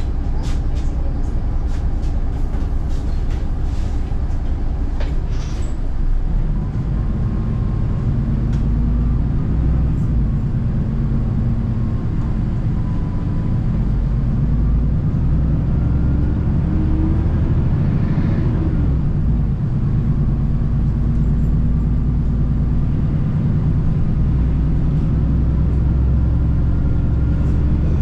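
Seoul city bus driving, heard inside the cabin from the back seat: a loud, steady low drone with a higher whine that rises in pitch as the bus gathers speed, drops back and rises again. A few clicks and rattles come in the first seconds.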